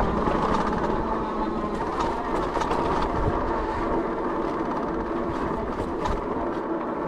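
Fat-tire electric bike rolling over a bumpy, corrugated dirt trail: a steady rumble from the tires with scattered rattles and knocks.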